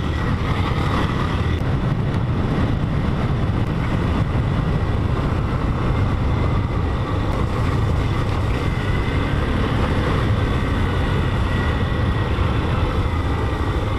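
Motorcycle being ridden at a steady pace, its engine running under a steady rush of wind and road noise.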